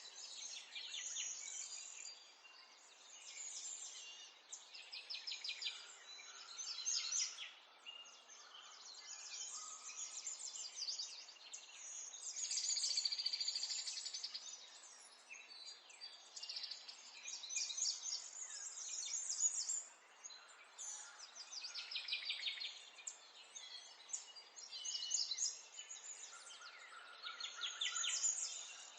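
Several small songbirds singing and twittering, one rapid trilled or chirping phrase after another with hardly a pause.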